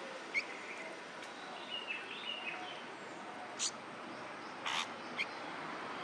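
Nestling songbirds begging for food: short, sharp chirps every second or so, with a small cluster of calls about two seconds in, over a steady background hiss.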